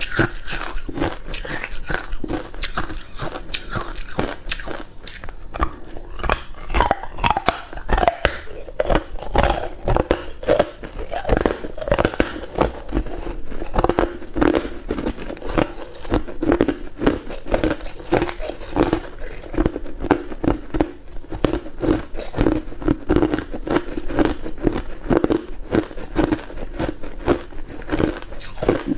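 A person biting and chewing ice cubes close to the microphone: steady crunching, cracking and grinding of ice between the teeth, going on without a break.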